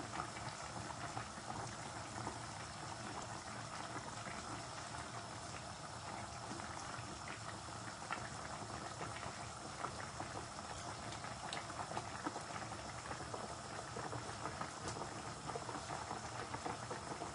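Fish and yardlong-bean curry bubbling steadily in the pan, with many small pops and crackles.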